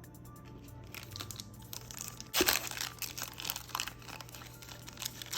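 Yu-Gi-Oh booster pack wrapper crinkling and being torn open, with irregular crackles and the loudest rip about halfway through.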